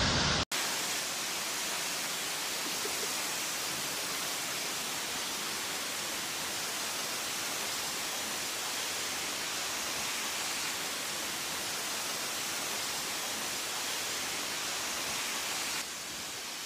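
Hail and rain pouring down in a heavy storm: a steady, even hiss that drops a little near the end.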